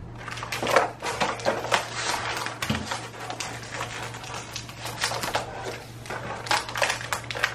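Small plastic toy figures clicking and rattling as they are handled and set into a clear plastic compartment case, in many quick irregular clicks, over a steady low hum.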